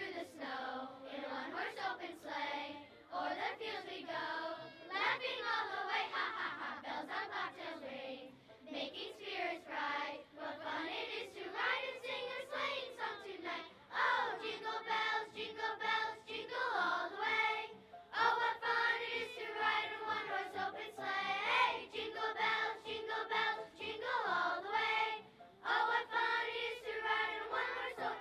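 Children's chorus singing a song together; the phrases move quickly at first, then turn to longer held notes about halfway through.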